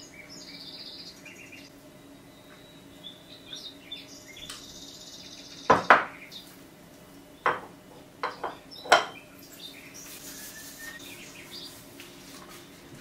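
Kitchenware clinking: about six sharp clinks of utensils against dishes, bunched together in the middle, the loudest two close together. Faint bird chirps in the background.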